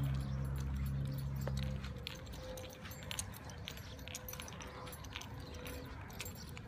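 A low steady hum that stops abruptly about two seconds in, then scattered light taps and rustles from a handheld phone camera being carried while walking.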